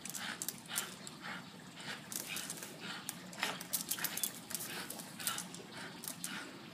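A dog hanging by its teeth from a rope swing tied to a tree branch: irregular short rustles and scuffs, several a second, as the dog tugs and swings on the rope, mixed with its breathing.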